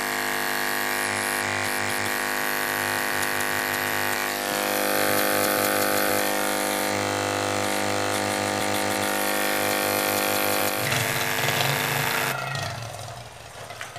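Kada 1250G gas compressor's coil-driven pump running with a steady electric buzz. Its tone shifts about four seconds in and again near eleven seconds, and it cuts off abruptly near the end. This is the unit running with its repaired coil and building good pressure.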